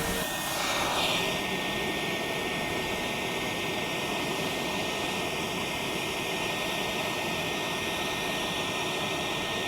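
Foundry melting furnace burner running steadily, a continuous rushing noise with a thin high whine through it.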